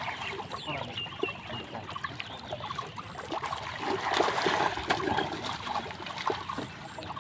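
Live fish thrashing and splashing in shallow water held in a net, with water dripping and splashing as they are grabbed and lifted out by hand; the splashing is louder about four seconds in.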